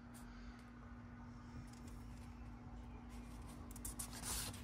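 Paper instruction sheet rustling as it is handled, with a brief louder rustle a little over four seconds in as the sheet is turned over. A low steady hum runs underneath.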